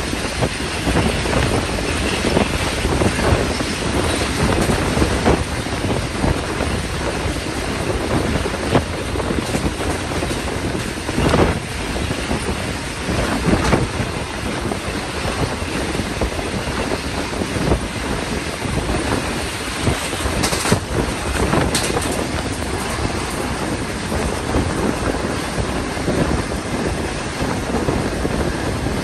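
Passenger train running along the track, heard from on board: a steady rumble of wheels on rail with irregular clacks over the rail joints, and wind noise on the microphone.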